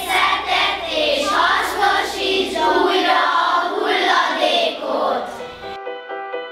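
A group of children singing together in unison. Near the end the voices cut off and a few clean, sustained electronic music notes begin.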